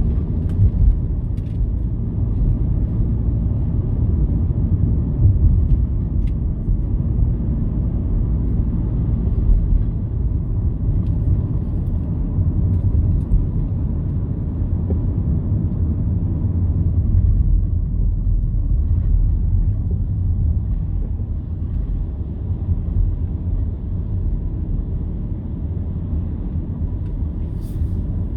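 Steady low road rumble inside a moving car's cabin: engine and tyre noise while driving.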